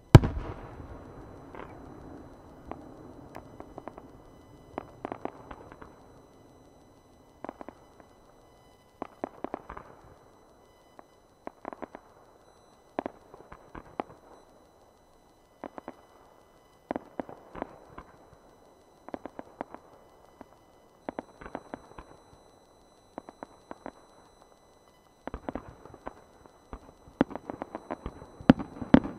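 Fireworks: one large aerial shell bursts with a loud bang right at the start and echoes away over a couple of seconds. Then smaller shells and rising stars give sharp cracks and pops in short clusters every second or two, coming thick and fast near the end.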